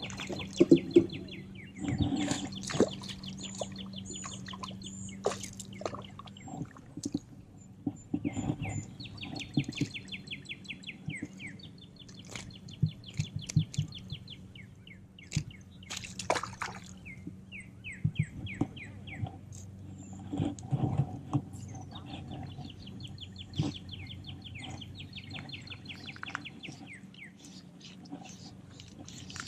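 Songbirds singing outdoors: repeated fast trills of rapid, evenly spaced notes, each trill a second or two long, recurring throughout. Scattered sharp clicks and rustles come from the fly rod and line being handled close to the microphone, over a faint low steady hum.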